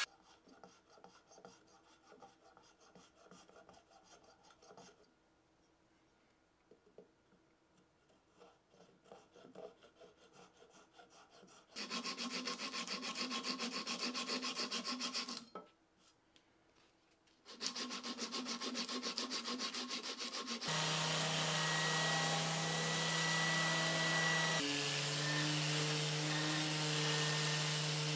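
Wood being worked by hand: faint shaving strokes on a wooden mallet handle, then two spells of quick, repeated rubbing strokes along it. For the last seven seconds or so a Bosch random orbital sander runs steadily on the carob mallet head, its hum shifting in pitch partway through.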